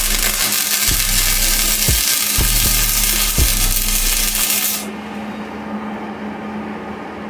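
Angle grinder grinding metal, a loud steady hiss with a few low knocks, stopping abruptly about five seconds in and leaving a steady low hum.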